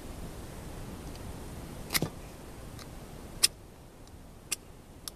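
Ferro rod being struck with a multi-tool: a series of short, sharp scrapes, spaced half a second to a second apart and starting about two seconds in, the loudest near the middle. The multi-tool's steel is too poor to light the tinder.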